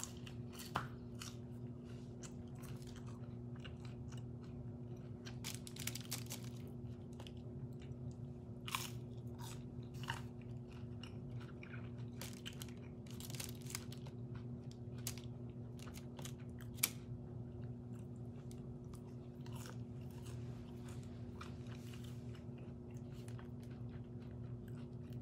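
Close-up chewing and biting of McDonald's fast food, with moist smacking and scattered crunchy clicks. A steady low hum runs underneath.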